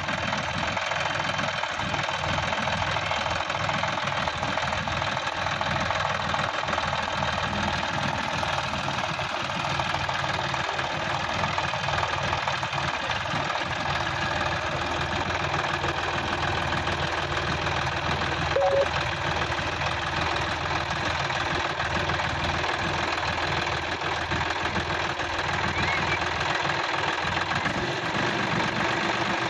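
Sonalika DI-50 RX tractor's diesel engine running steadily at low speed, with a rough, knocking beat. A brief high note sounds once about two-thirds of the way through.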